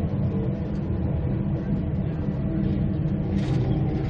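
Steady low rumble of a Queensland Rail Tilt Train heard from inside the passenger car as it runs along the track, with a brief hiss about three and a half seconds in.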